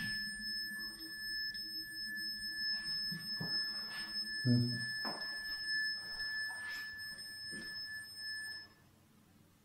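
Steady electronic tone from a handheld temperature meter, sounding its alert for a drop in temperature; it cuts off suddenly near the end. A few faint knocks and handling sounds underneath.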